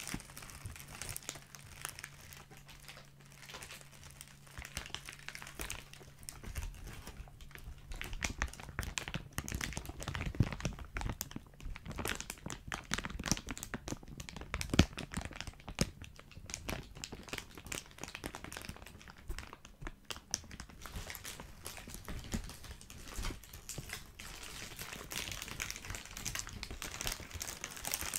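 Thin clear plastic bag being squeezed, crinkling and crackling in an irregular run. It gets busier and louder about ten seconds in.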